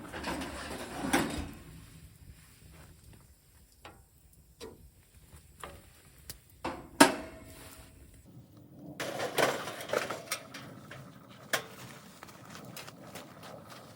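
Scattered clicks, knocks and rustling of objects being handled, with one sharp knock about seven seconds in.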